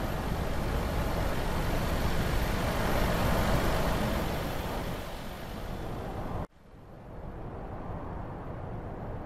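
Semi-truck with a box trailer driving at motorway speed: a steady rush of tyre and wind noise, with no clear engine note. About six and a half seconds in it cuts off abruptly and gives way to a fainter, distant rush.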